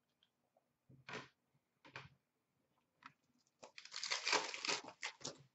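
Trading cards handled with a couple of short rustles, then a card pack's wrapper torn open and crinkled in a dense run of crackles for about a second and a half near the end.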